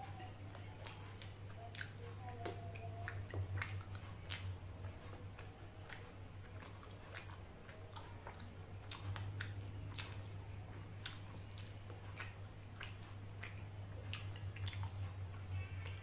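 Close-miked chewing of a mouthful of food, with irregular wet mouth clicks throughout. A steady low hum runs underneath.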